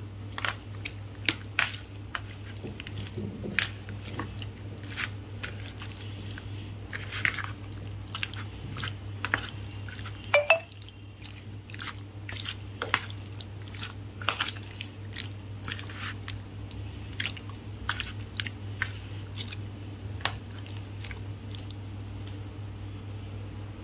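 A metal spoon stirring and turning raw chicken pieces in a thick yogurt marinade in a plastic bowl: wet squelching with irregular clicks and taps, a few a second, over a steady low hum. A brief squeak about ten seconds in.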